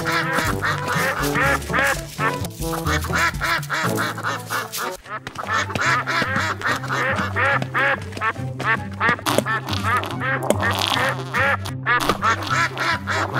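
Duck quacking, many quick quacks in a row, over background music with a stepping bass line.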